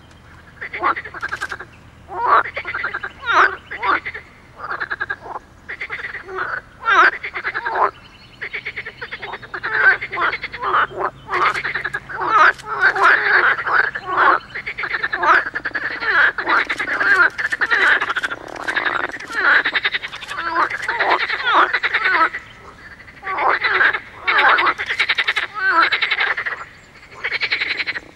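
Chorus of pond frogs croaking: several frogs' rattling calls overlap in bouts of a second or two. The calling is almost continuous through the middle, with short lulls between bouts.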